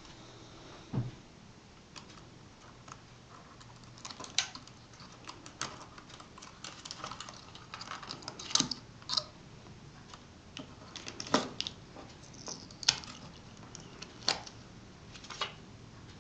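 Scattered small clicks and taps, irregularly spaced, with a low thump about a second in: hands and a small tool working on the parts of an opened PowerBook G4 laptop.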